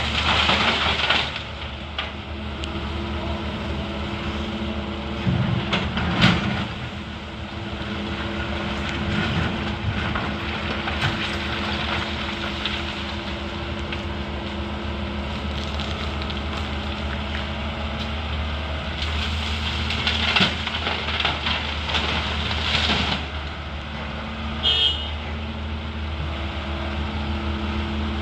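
Doosan 225LC excavator's diesel engine running steadily, with several louder surges of noise, and a brief high squeak about 25 seconds in.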